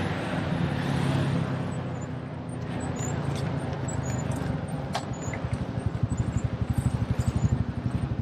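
Street traffic: a motor vehicle engine running by, then from about five and a half seconds in a low, fast, regular throbbing engine close by.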